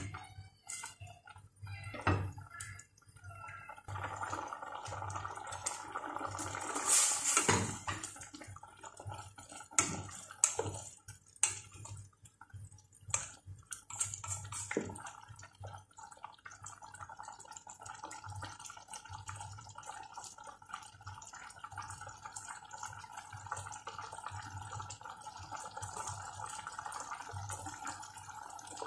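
Chicken in coconut milk simmering and bubbling in a stainless steel pot, a steady fine crackle of bubbles. Through the first half a spatula stirs and knocks against the pot.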